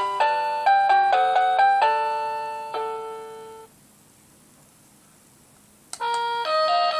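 Dick Smith Y8450 wireless door chime playing one of its electronic tunes as a run of single notes, which stops about halfway. After a short quiet pause there is a click, and the next tune starts near the end.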